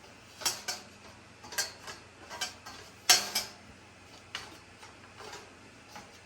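Light hardware clicks and clinks from handling screws and parts while assembling a shoe rack. About ten sharp clicks at uneven spacing, some in quick pairs, the loudest about three seconds in.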